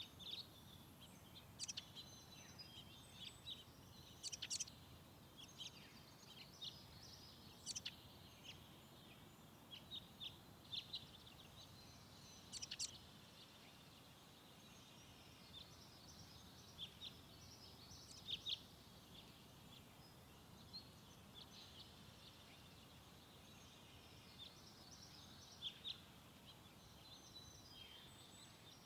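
Small birds chirping in short, high calls scattered throughout, over a faint steady background hiss.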